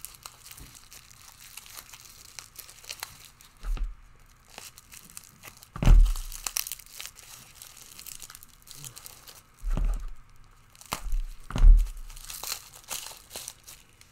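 Packaging crinkling and tearing as items are unwrapped by hand, with several sharp knocks of objects being handled and set down, the loudest about six seconds in and near the end.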